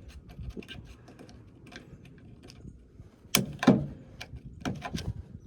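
Hand tool working the new cotter pin on a snowblower wheel axle: faint small clicks of metal handling, then two sharp knocks about three and a half seconds in and a few more near the end as the pin's legs are tapped and bent over.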